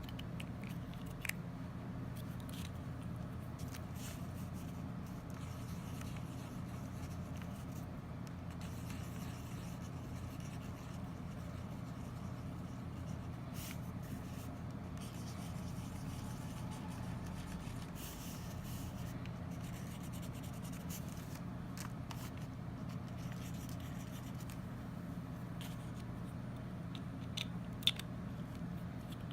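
Steady low hum with faint scratching of a highlighter drawing on paper, and a few light clicks, one about a second in and two near the end.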